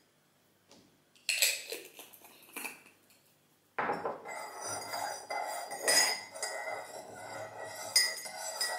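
A metal spoon clinking and scraping against a cup or dish: a couple of short scrapes, then from about four seconds in a steady run of rapid clinks with a ringing tone, as when stirring a drink.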